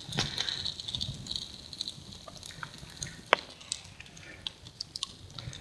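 Campfire burning in the rain: irregular sharp crackles and ticks over a faint hiss, with one louder pop a little past halfway.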